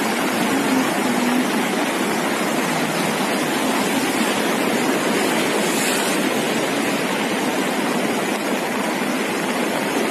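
Floodwater in a swollen river rushing and churning past: a steady, dense roar of water noise.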